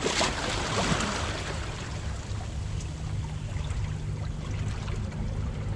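Sea washing and splashing against shoreline rocks, with a louder surge in about the first second, over a steady low rumble.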